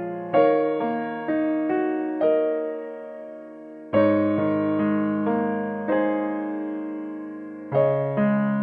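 Background piano music: slow phrases of struck notes and chords that ring and fade, with fresh chords about four seconds in and again near the end.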